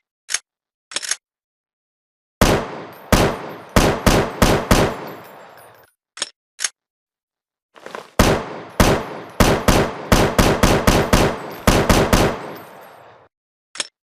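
Sound-effect gunfire from an AR-7 assault rifle: two strings of rapid shots, each shot ringing out into an echoing tail. Short, sharp clicks come before, between and after the strings.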